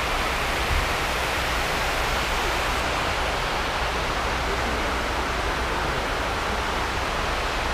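Steady rush of the 9/11 Memorial's waterfall pool: water falling down the pool's walls into the basin.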